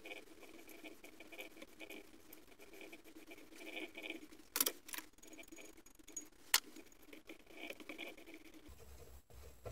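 Hand tap turned by a T-handle tap wrench, cutting a thread into a metal clamp block and squeaking in short repeated chirps as the handle turns. Two sharp clicks, about two seconds apart, near the middle.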